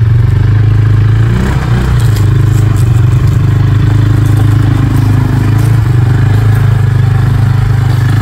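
Vehicle engine running loud and steady close by, its pitch wavering briefly between one and two seconds in.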